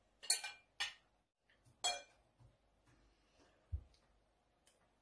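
Metal spoon and fork clinking against a ceramic plate while food is scooped up: three sharp clinks in the first two seconds, then a soft low thud a little before the end.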